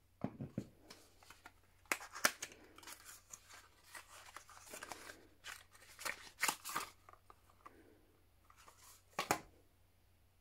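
A thin paperboard carton being handled and opened by its end flap, with crisp rustling and scraping of card and a few sharp taps as a small glass dropper bottle is taken out and handled.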